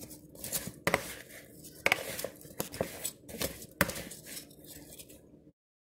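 Metal tongs tossing oiled, seasoned sweet potato fries in a bowl: sharp clicks of the tongs against the bowl roughly once a second, with soft scraping and rustling of the fries between them. The sound cuts off suddenly near the end.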